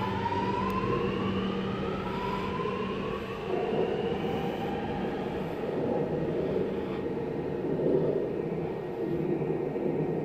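Sydney Metro Alstom Metropolis train pulling away from the platform, its traction motors whining in several tones that climb in pitch as it accelerates. The whine fades out over the first half as the train leaves, while a steady rumble carries on.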